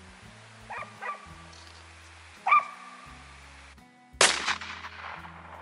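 A dog gives three short barks, then a single 12-gauge shotgun shot cracks out, the loudest sound, its echo fading over about a second.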